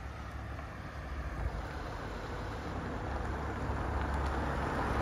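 Street traffic: a car approaching on the road, its engine and tyre noise growing steadily louder toward the end, over a low rumble.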